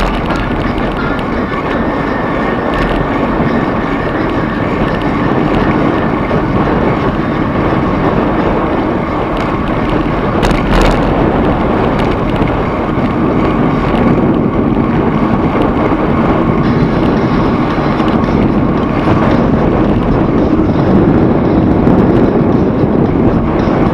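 Steady running noise of a moving vehicle with wind on the microphone, and a brief clatter about halfway through.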